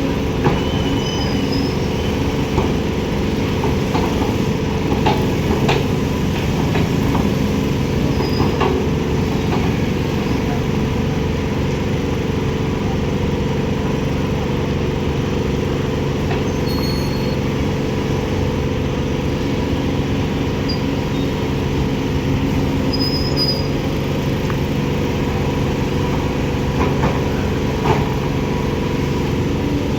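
Heavy construction machinery's diesel engine running steadily, with scattered knocks and clanks, a cluster of them a few seconds in and a few more near the end.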